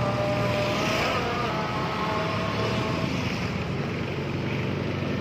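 Motor scooter engines running close by: a steady engine rumble mixed with street traffic noise.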